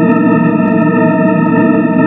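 Steady, unchanging organ-like drone holding one pitch, with many even overtones over a dense low hum.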